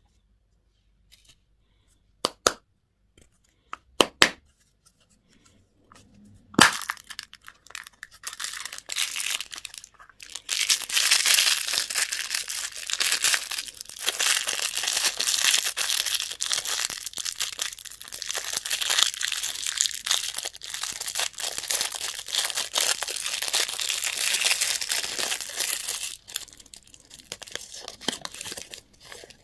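A few sharp clicks, then a long stretch of dense crackling and crinkling as a plastic candy wrapper is handled and torn open. The crinkling fades near the end.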